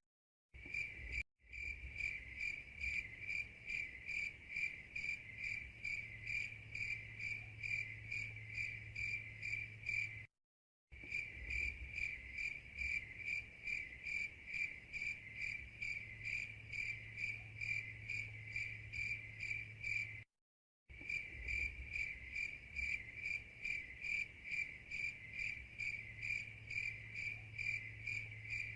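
A cricket chirping in a steady, even rhythm of about three chirps a second over a low hum. It is a short recording looped, cutting out for a moment and restarting about every ten seconds.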